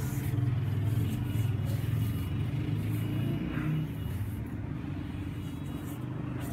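A steady low mechanical drone, a little louder for the first four seconds or so and then slightly quieter.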